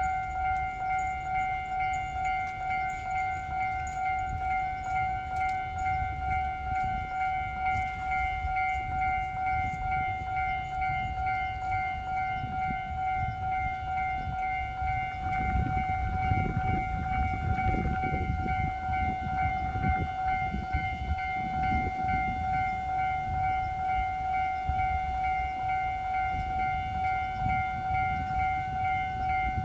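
Japanese railway level-crossing warning bell ringing on and on in quick, even strokes. About halfway through, the low rumble of a train passing over the crossing joins in and keeps on.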